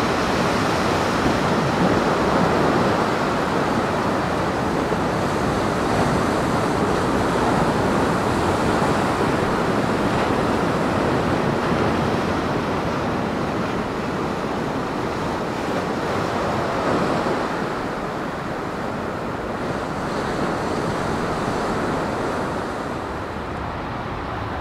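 Rough sea surf breaking and washing continuously on the beach and sea wall, with some wind on the microphone. It eases slightly toward the end.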